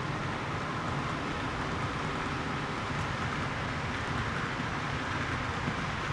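Model railroad freight train rolling along the track: a steady rattle and hum of the wheels on the rails.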